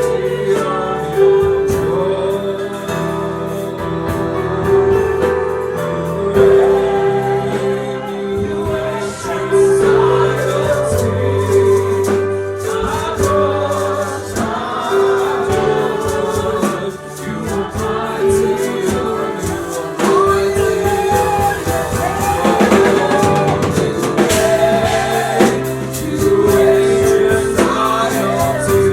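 Gospel song with a choir singing over instrumental backing and a steady beat.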